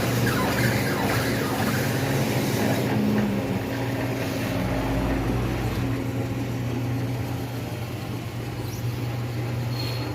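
Tyre changer machine's motor running with a steady hum as the turntable turns and the tyre bead is worked onto the rim, with a brief deeper rumble about halfway through.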